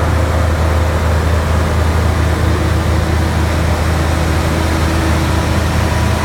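Morbark Hurricane 18 drum chipper's Caterpillar turbo diesel engine running at a steady speed, with a strong low hum and no chipping impacts.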